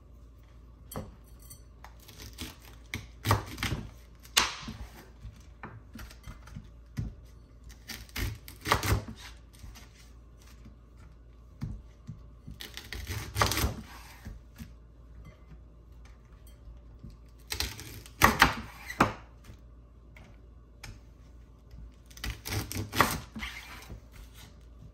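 Knife cutting Brussels sprouts in half on a wooden cutting board. Each sprout gives a short cluster of sharp knocks as the blade goes through and strikes the board, with a new cluster every four to five seconds.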